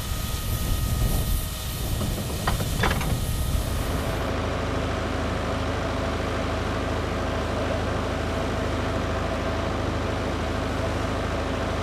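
D3 class steam locomotive standing with a steady hiss of steam and two sharp clicks about three seconds in. About four seconds in the sound gives way to a steady, low mechanical hum with a droning tone beside the standing carriages.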